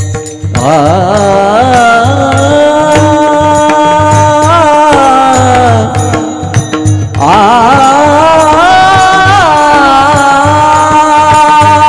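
Warkari kirtan singing: a high voice holds two long notes with wavering ornaments, each sliding up into place, the second starting about seven seconds in, over a steady drum beat.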